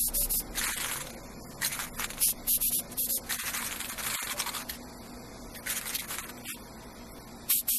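Aerosol spray paint can hissing in a series of short bursts, with one longer spray of about a second near the middle.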